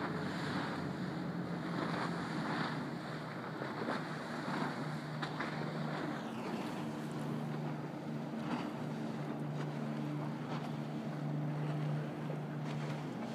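A Navy boat's engine droning steadily in a low hum, with wind buffeting the microphone. A high whine drops in pitch about six seconds in.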